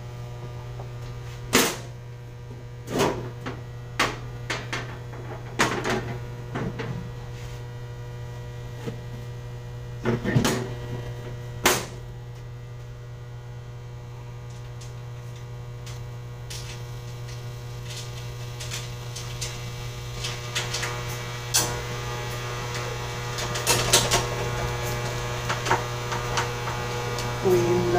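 Steady mains hum with scattered sharp metallic clicks and knocks as a steel electrical panel cover is set back in place and screwed down.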